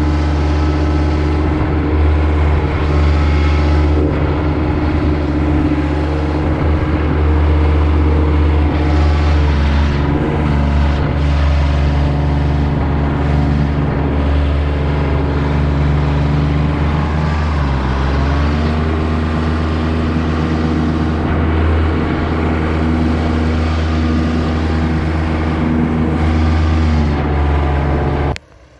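Paramotor engine and propeller running steadily at cruise power in flight, with the throttle briefly eased and picked up again twice, the second time about two-thirds of the way in. The sound cuts off suddenly near the end.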